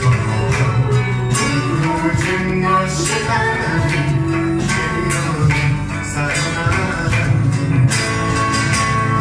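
Live acoustic music: an acoustic guitar and a sanshin played together, with singing over them.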